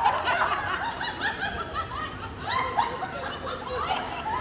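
Women laughing in runs of short, quickly repeated laughs.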